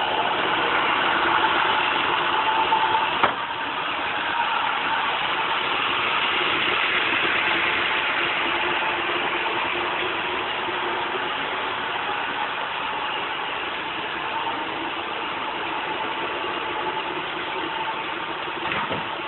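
Roomba robot vacuum running: a steady whir of motor and brushes with a constant hum in it, and a single knock about three seconds in.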